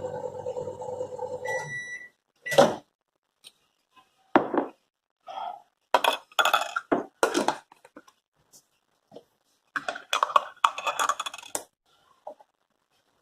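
A kitchen appliance's steady hum stops about two seconds in, with a short electronic beep. Then dishes and cutlery clatter and clink in a series of separate knocks over the next ten seconds.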